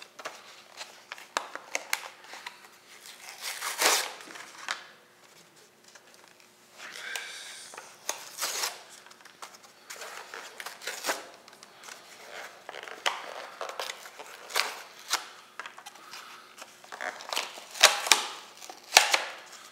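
Plastic blister pack and card backing of a Matchbox die-cast Volkswagen T2 bus being opened: irregular crinkling and sharp cracks of plastic. It is loudest about four seconds in and again near the end.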